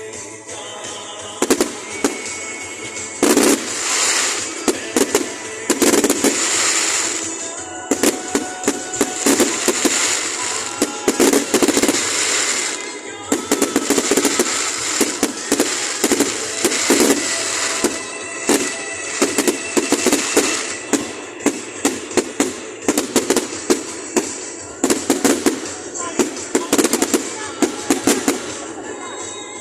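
Fireworks going off: many sharp bangs and crackles in quick succession, coming thicker after the first few seconds, with music playing underneath.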